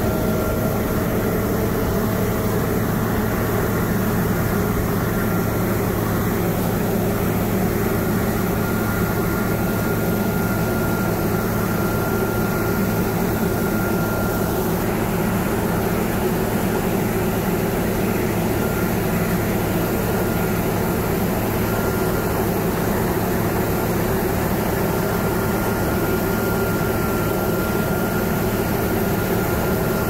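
John Deere T670i walker combine running steadily while harvesting wheat: a continuous, unchanging engine and threshing hum.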